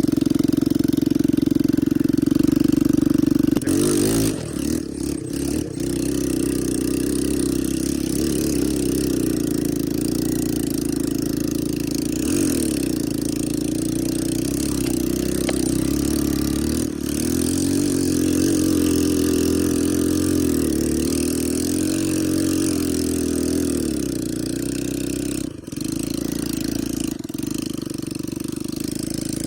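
ATV engine running under throttle, its pitch rising and falling as it is revved up and eased off, with a few brief dips where the throttle drops.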